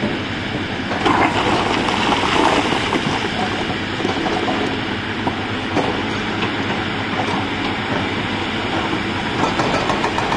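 Hyundai 210 excavator working in broken rock: the diesel engine runs under load while the bucket scrapes and shifts stones, with rocks clattering. The clatter is busiest and loudest about one to three seconds in.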